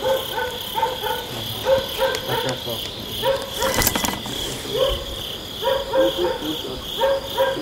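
Crickets trilling in a steady high chorus, with short lower calls repeating over it and a brief crackle about four seconds in.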